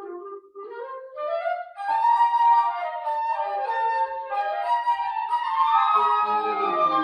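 Several flutes playing classical-style music together. A single line climbs at first, other flutes join in harmony about two seconds in, and lower parts come in near the end.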